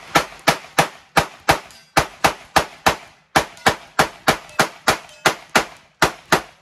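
Replica M1862 .58-calibre Gatling gun firing as its crank is turned by hand: a steady string of about twenty loud shots, roughly three a second, stopping shortly before the end.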